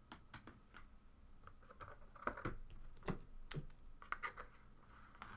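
Trading cards and box packaging being handled: a scatter of light clicks, taps and scratches, a few sharper ones in the middle.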